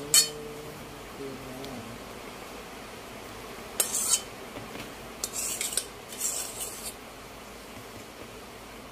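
Metal spoon scraping and clinking against a glass bowl as thick cream mixture is scraped out of it. One scrape comes at the start, then three short scrapes between about 4 and 7 seconds in.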